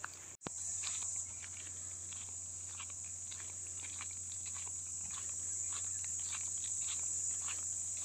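A steady high-pitched drone of insects, with footsteps crunching on a gravel path at a walking pace.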